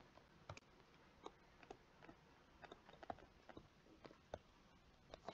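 Near silence with faint, irregular small taps and clicks of a stylus writing on a tablet screen.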